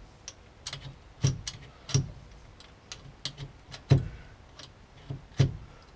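Gear lever and remote shift linkage of a Mazda RX8 six-speed gearbox being worked through the gears: a series of sharp, irregular metallic clicks and clunks, roughly every half second.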